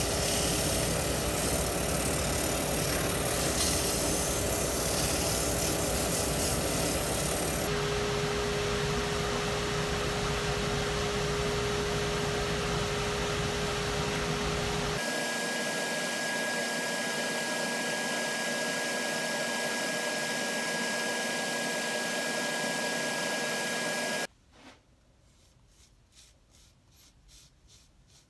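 Jet wood lathe running with sandpaper, then a finishing cloth, pressed against a spinning oak and poplar bowl: a steady whirring hiss whose tone changes abruptly at edits about eight and fifteen seconds in. The lathe sound cuts off near the end, leaving only faint rubbing of the cloth on the bowl.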